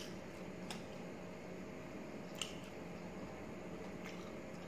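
Close-miked eating sounds: chewing rice and chicken liver curry, and fingers working the food on a steel plate, with three short clicks, the loudest about halfway through, over a faint steady hum.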